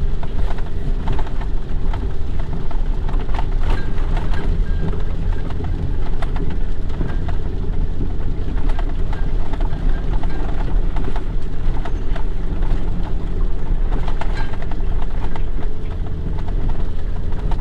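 Vehicle engine running with a steady low drone, heard from inside the cab, with rain and many scattered sharp taps hitting the body as it drives on a slippery, muddy track.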